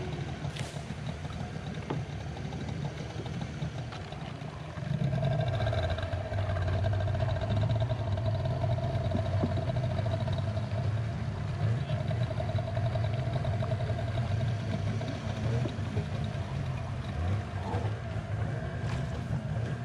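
Outboard motor of a wooden river longboat running steadily, with water rushing along the hull. About five seconds in the engine note gets louder and a steady higher drone joins it, as if throttled up.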